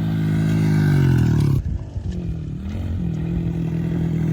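Small off-road vehicle engine revving and holding high, cutting out about one and a half seconds in, then picking back up and running steadily again.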